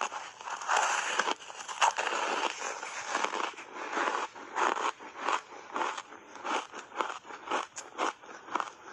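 Close-up chewing of frozen berry shaved ice in the mouth. A dense crunching comes first, then settles into rhythmic crunching chews about two a second.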